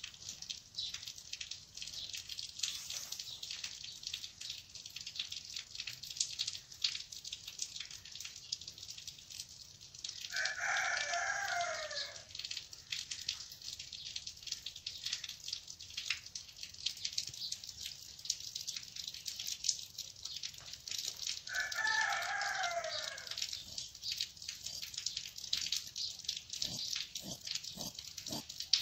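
A rooster crowing twice, about eleven seconds apart, each crow about two seconds long and falling in pitch at the end. Between the crows, light rustling and clicks of hands handling cloth and a tape measure.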